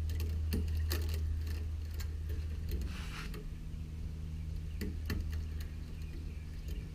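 Scattered light metallic clicks and ticks of the broomed-out steel wires of a wire rope end being worked by hand and squeezed together to fit into a spelter socket, over a steady low hum.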